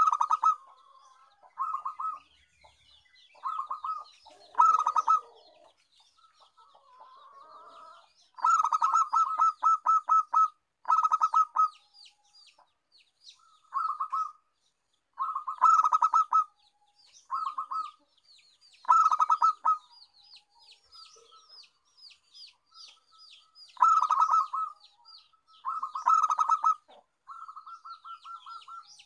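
Zebra dove (perkutut) singing: a dozen or so short phrases of rapid staccato cooing notes, one every second or two. Fainter, quick high chirps of another small bird run underneath, thickest in the second half.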